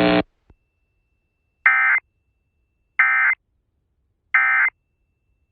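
Emergency Alert System end-of-message code: three short buzzy bursts of digital data tones, evenly spaced about a second and a half apart, marking the end of the warning broadcast.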